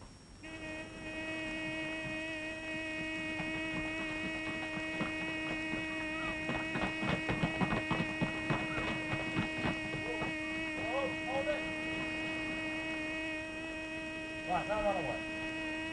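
Electric air-raid alarm buzzer giving one steady buzzing tone, starting about half a second in and holding unbroken: the signal of an air alarm. A rapid clatter of knocks fills the middle, and a couple of brief shouted calls come through near the end.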